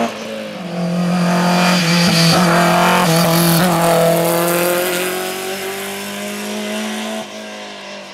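BMW M3 rally car engine running at high revs under hard acceleration, with some tyre noise. It is loudest in the first half, then fades near the end as the car moves away.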